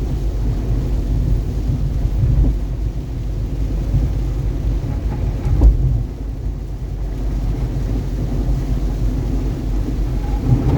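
Steady low road rumble inside a car driving a freeway in heavy rain and gusty wind, with one thump about halfway through.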